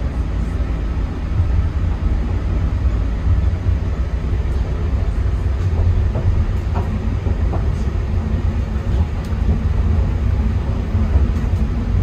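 Airport people-mover train running along its elevated guideway, heard from inside the car: a loud, steady low rumble with a few faint clicks and rattles.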